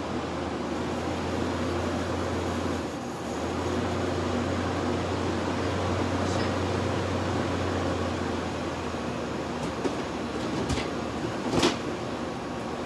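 1986 Friedrich Quietmaster 19,000 BTU window air conditioner running, heard from the compressor side: a steady rushing fan noise under a low compressor hum, which stops about eight seconds in. A few sharp knocks follow near the end.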